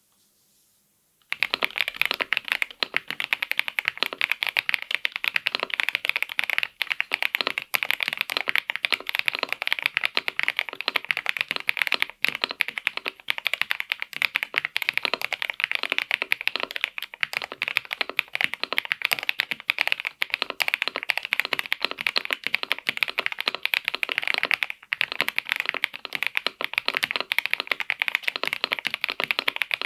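Kzzi K98 mechanical keyboard being typed on fast and without pause, a dense stream of keystroke clacks. It starts about a second in, after a brief silence.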